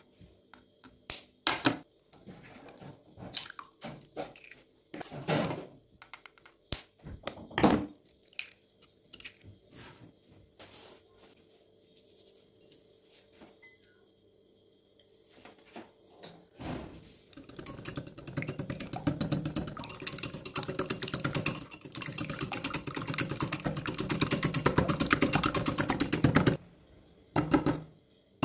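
Eggs cracked into a ceramic bowl, a few separate knocks in the first several seconds. Then a wire whisk beats the eggs against the bowl in a fast, even clatter for about ten seconds, stopping abruptly, followed by a couple of taps near the end.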